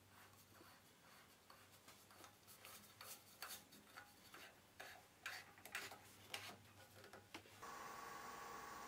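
Faint clicks and rubbing of a wooden bowl blank turned by hand as it is screwed onto a lathe chuck's centre worm screw. Near the end a steady faint hum starts.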